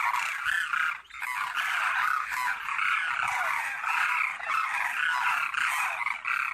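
A flock of cranes calling together: many short, overlapping calls repeating without pause, with a brief lull about a second in.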